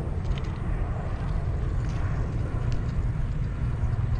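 Jet airliner flying overhead: a steady, low engine rumble.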